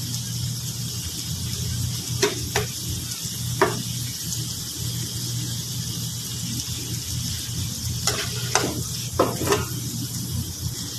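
Shrimp frying in garlic butter in a pan, a steady sizzle. A metal spatula knocks and scrapes against the pan several times, in a cluster a couple of seconds in and another near the end.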